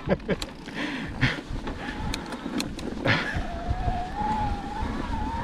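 Mountain bike rolling along a dirt trail: tyre and wind noise with a few sharp rattles, and from about three seconds in a thin, wavering whine.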